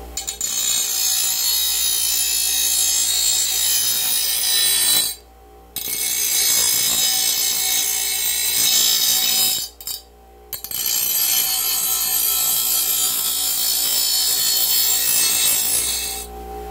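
Steel lawn mower blade being ground on a running Porter-Cable bench grinder wheel: a loud, harsh, hissing grind. It breaks off twice briefly, about five and ten seconds in, as the blade is lifted from the wheel.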